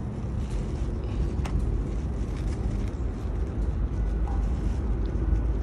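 Steady low background rumble, with one faint click about a second and a half in as plastic parts are pushed together with pliers while a fuel filter is seated into a motorcycle fuel pump assembly.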